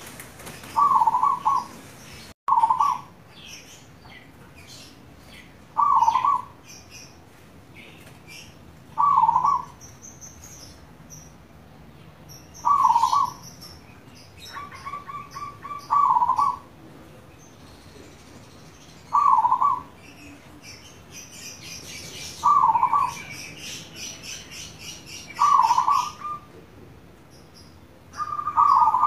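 Zebra dove (perkutut) singing its cooing song: about ten short phrases, most about three seconds apart. Fainter high chirps of small birds sound between the phrases.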